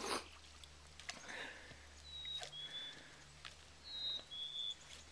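Faint footsteps across dead logs and branches: scattered knocks and snaps of wood and rustling of dry grass and brush, with a few short high squeaks about two and four seconds in.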